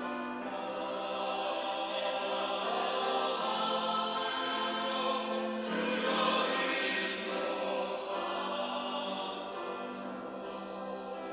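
Church choir singing a Sunday anthem in sustained chords, swelling louder about halfway through.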